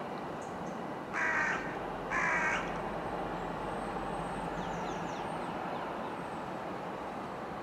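A crow cawing twice, two harsh calls of about half a second each, a second apart. Behind them is the steady low rumble of a Class 60 diesel locomotive approaching with a train.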